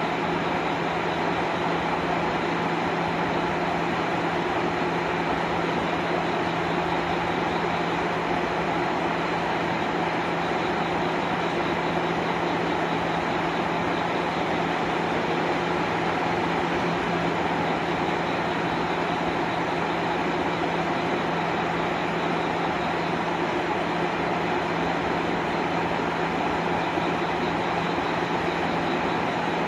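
KiHa 185 series diesel railcar standing with its engine idling: a steady, unchanging drone with a constant low hum.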